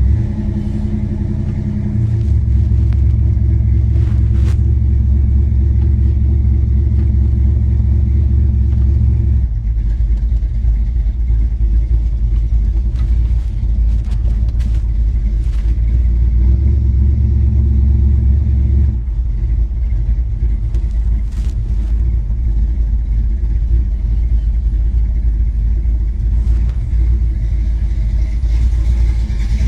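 A 1962 Chevrolet Bel Air's engine running steadily, its low hum shifting a few times as the engine speed changes.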